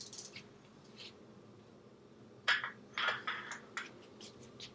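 Metal tools and parts clinking and rattling: a handful of sharp metallic clinks, the loudest cluster about two and a half to three and a half seconds in, over a faint steady hum.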